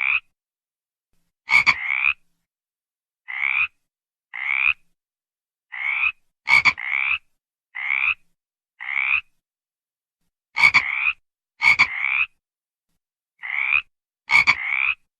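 Frog calling: a string of short croaks, each about half a second long and rising slightly in pitch, irregularly spaced, several opening with a sharp click.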